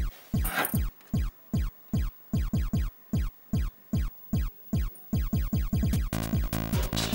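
Electronic background music: a steady kick-drum beat, about three beats a second, with a whoosh just after the start. About six seconds in, a fuller layer of sustained synth tones joins the beat.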